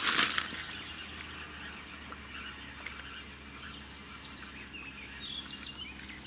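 Wild birds chirping in short, scattered calls over a quiet lakeside background, after a brief rustling noise right at the start.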